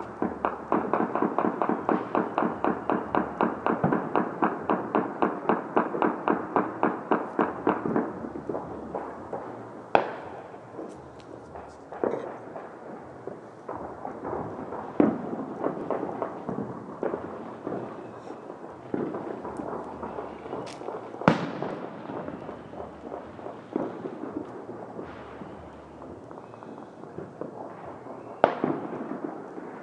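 Firecrackers and fireworks going off: a run of evenly spaced pops, about five a second for roughly eight seconds, then scattered single loud bangs several seconds apart, some with an echoing tail.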